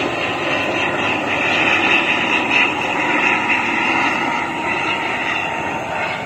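Twin-turboprop airliner flying low on its landing approach with gear down, its engines giving a steady rushing noise with a faint steady whine.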